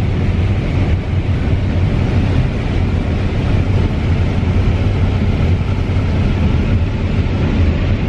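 CLAAS combine harvester running at work shelling corn, heard from inside the cab: a loud, steady low drone of engine and threshing machinery.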